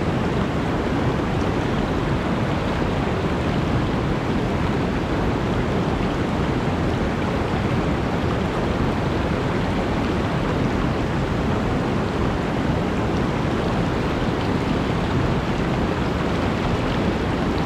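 Mountain stream water rushing and splashing below a waterfall: a steady, deep roar of falling and flowing water.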